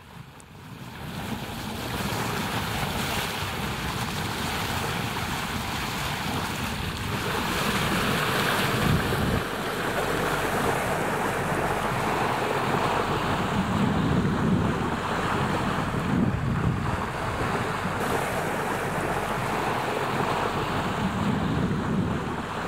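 Water rushing and splashing as a sailboat's bow cuts through the sea, with wind buffeting the microphone; the rush swells and eases in surges every few seconds.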